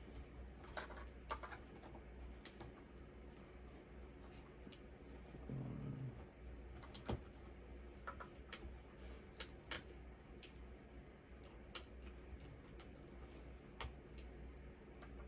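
Scattered small clicks and taps of hard plastic as accessory forearm blades are handled and pressed onto a Transformers R.E.D. Arcee action figure, the sharpest click about seven seconds in, over a low steady hum.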